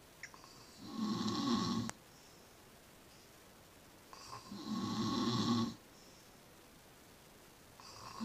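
A sleeping person snoring: two loud snores of about a second and a half each, roughly four seconds apart, each ending abruptly, with a third snore starting near the end.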